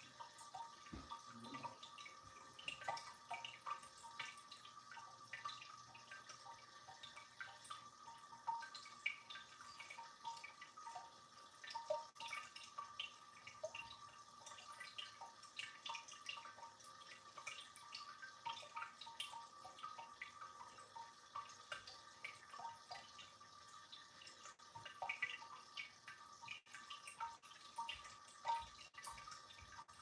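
Tabletop ceramic cascading fountain: water trickling from pot to pot and dripping into the bottom basin in a steady, irregular patter of small drips, with a faint steady tone underneath.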